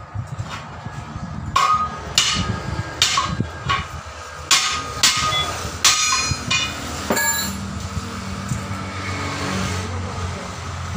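Steel tyre lever striking and prying against the steel rim of a truck wheel while the tyre bead is worked loose: about nine sharp, ringing metal clanks, spaced half a second to a second apart, stopping about seven seconds in, after which a low steady hum remains.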